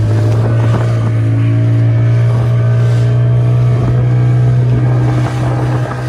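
Motorboat engine running at a steady pitch, a loud low drone.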